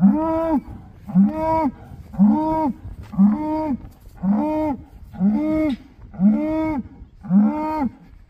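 Black bull calling over and over, about one short call a second, each one rising and then falling in pitch: calling for the herd, which has gone off.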